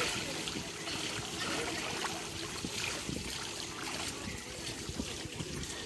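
Pool water trickling and lapping into the grated overflow gutter at the pool's edge, with small drips and splashes as a wet swimmer climbs out over it.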